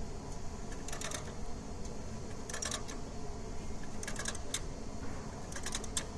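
Short clusters of rapid sharp clicks about every second and a half, over a steady low background noise.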